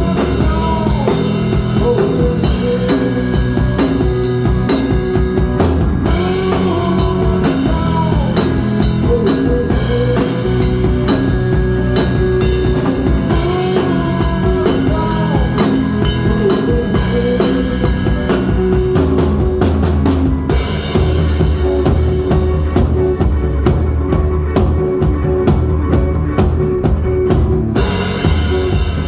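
Rock band playing live: a drum kit with busy cymbal work, electric lead guitar bending notes, and bass guitar underneath. About two-thirds of the way through the cymbals drop out and the bass and drums carry on, then the cymbals come back in near the end.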